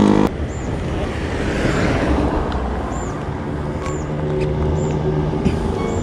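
Road traffic passing by: a steady wash of car and motorbike noise with a low rumble.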